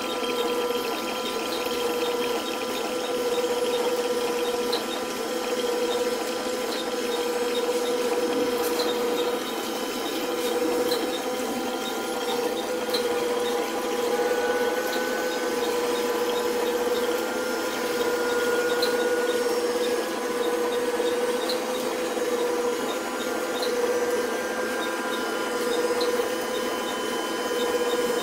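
Small electric water pump running steadily with a constant hum, filling a tank as water bubbles and rushes in. Faint light ticks sound every second or so.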